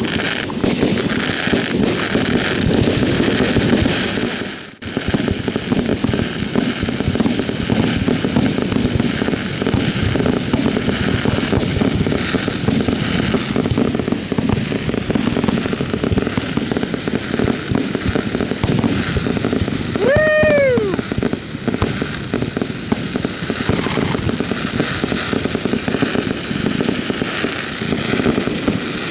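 Fireworks display at its height: a dense, continuous run of rapid crackling and popping shell bursts. It drops away for a moment about five seconds in, and a short whistle rises and falls about two-thirds of the way through.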